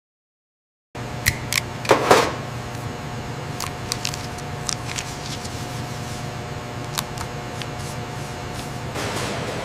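Processing-plant machinery running with a steady hum, after about a second of silence, with scattered sharp clicks and clacks and a brief louder clatter about two seconds in.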